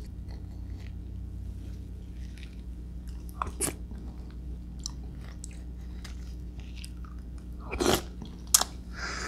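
Close-miked mouth sounds of eating soft star apple flesh scooped with a spoon: quiet wet chewing and smacking, with a louder wet mouthful just before the end, followed by a sharp click.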